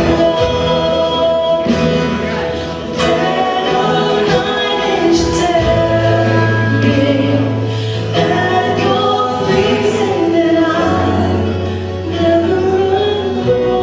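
Live worship band with several voices singing together over acoustic guitar, keyboard and hand drums, with sustained low bass notes and occasional sharp drum hits.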